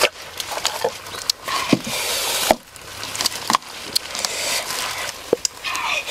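Irregular wooden knocks and clatter as coconut-shell bowls of fresh red chillies and grated coconut are tipped and tapped into a wooden mortar, over a steady hiss.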